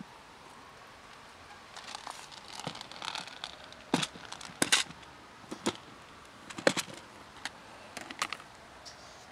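Dry cat food being handled and poured out of a plastic storage container into a plastic tray: rustling, then a series of sharp plastic clicks and knocks.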